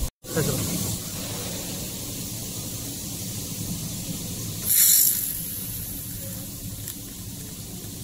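Steady hiss and hum of a running handheld laser welding setup. About five seconds in there is a loud half-second burst of hissing as the welding head fires at a steel joint.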